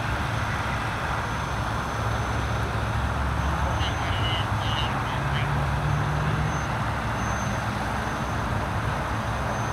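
An engine running steadily at idle, a low even hum, with a few faint high chirps about four seconds in.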